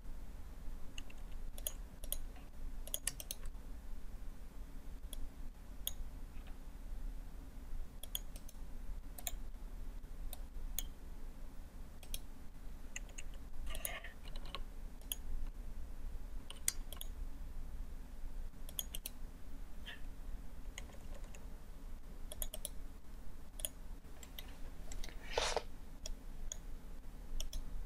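Scattered computer mouse button clicks, including right-clicks, over a low steady hum. There is a brief louder rustle near the end.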